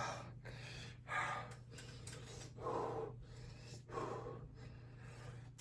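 A man breathing hard through his mouth, about four heavy gasping breaths a second or so apart, from the burn of a very hot spicy food challenge.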